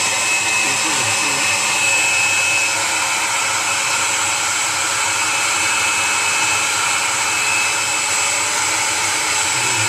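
Hair dryer running steadily, a constant rush of air with a high whine.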